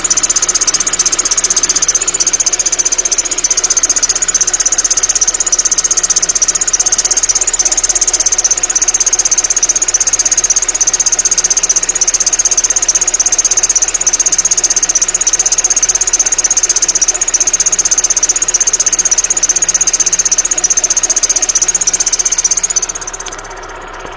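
Opel Frontera's X22XE 2.2-litre four-cylinder engine running with a steady, high-pitched drive-belt whistle, which fades out near the end. The whistle comes from the belt wandering on the tensioner pulley because the crankshaft pulley runs out of true.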